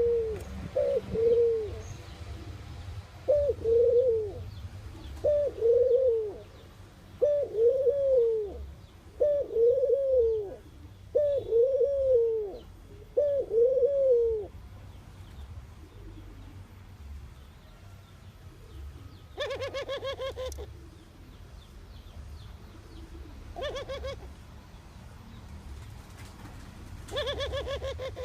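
A dove cooing: a series of about eight low, arched coo notes, one every second and a half or so. After a pause come three shorter, harsher pulsed calls, one about twenty seconds in and the others near the end.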